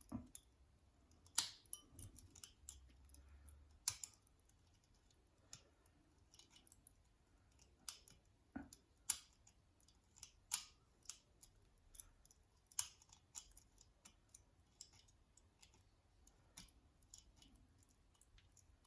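Faint, irregular small metallic clicks and ticks of a lever pick wire and tension tool working the levers inside a six-lever padlock, a few every second or so.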